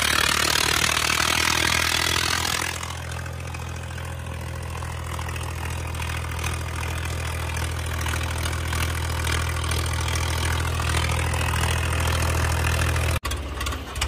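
Swaraj tractor's diesel engine running at a steady speed on the road, with a rush of wind noise over it for the first few seconds. The engine sound cuts off abruptly about a second before the end.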